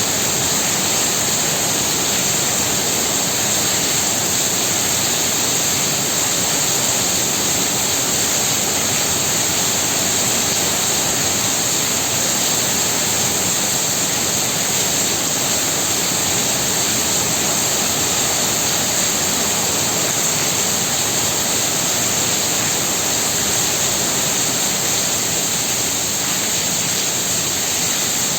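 Heavy rain pouring steadily, a dense, even hiss without a break.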